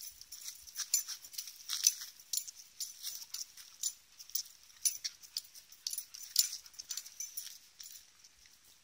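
A husky's claws clicking on brick paving as it walks: an irregular run of short, sharp ticks, a few a second.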